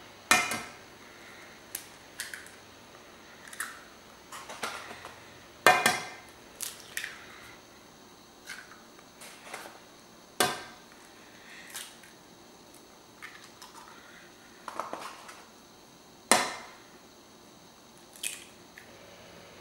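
Raw eggs cracked one after another over a cast-iron skillet: four sharp cracking knocks of shell, several seconds apart, with lighter clicks and crackles of shell being pulled open between them.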